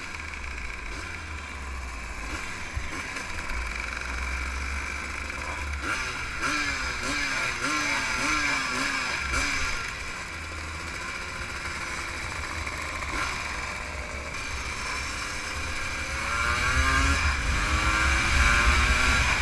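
Motorcycle engines in a group ride, heard from a rider's own bike, with wind rumble on the microphone. About six seconds in, an engine revs up and down in a quick run of about five blips, and near the end one accelerates with a rising pitch and the sound grows louder.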